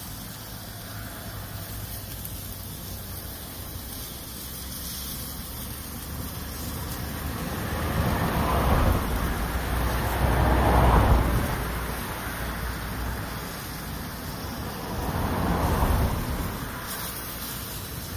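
Cars passing on a nearby road: the sound swells up and fades away three times, loudest in the middle, over a steady background hiss.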